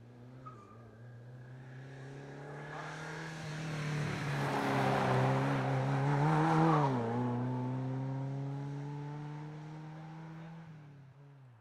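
A Volvo road car's engine pulling hard up the hill climb, growing louder as it approaches. It passes close about two-thirds of the way through, its pitch dropping as it goes by, then it fades away and cuts off suddenly near the end.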